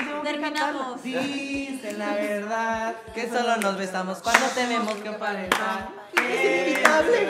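A group of young people singing along together while clapping their hands, with sharp claps landing at uneven intervals through the singing.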